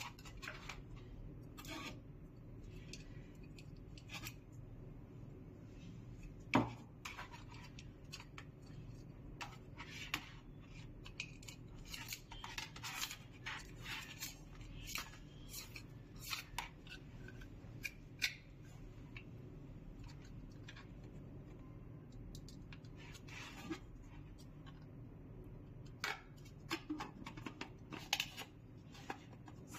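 Scattered small clicks, taps and light scraping of small objects being handled, over a faint steady low hum. One sharper knock comes about six and a half seconds in.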